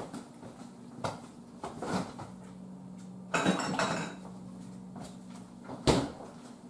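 Someone rummaging in a kitchen for a jar: scattered knocks and clinks of dishes and containers, with a longer rattle about three and a half seconds in and a sharper knock near six seconds.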